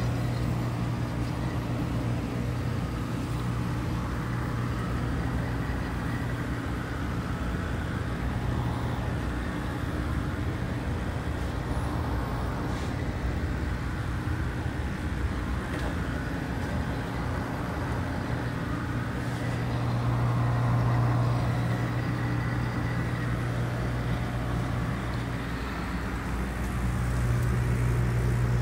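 Steady low hum of aquarium pumps and equipment over an even rushing noise; the hum swells a little about two-thirds of the way through and again near the end.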